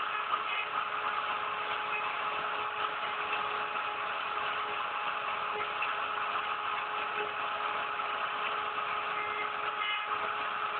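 CNC router spindle running steadily while carving a 3D relief into MDF, with a constant whine over the cutting noise.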